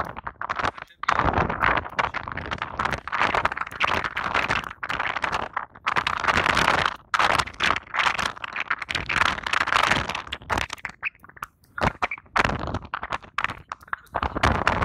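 Wind and road noise of a moving car, rushing and crackling on a phone's microphone held at the open side window; rough and uneven, with brief lulls about a second in and again near the end.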